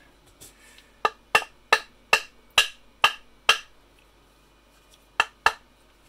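A run of seven sharp, hollow-sounding knocks, about two or three a second, then a pause and two more near the end.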